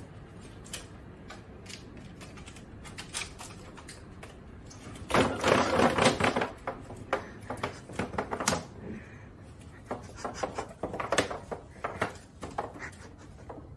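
Large round woven bamboo tray toppling onto a tiled floor, clattering as it settles flat, about five seconds in. Light knocks and taps come before and after it.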